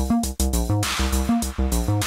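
Eurorack modular acid bass line: a sequence of stepping synth bass notes through a 303-style filter, over drum-machine hits. A sustained reverb wash pumps up and down in time as the 2VCA ducks it by side-chain compression.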